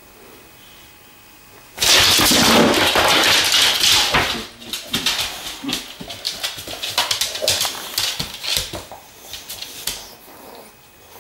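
Boxer dogs scrambling on a tiled floor, their claws scrabbling and clicking on the tiles. It starts suddenly about two seconds in, is loudest for the first couple of seconds, then breaks up into scattered clicks and knocks.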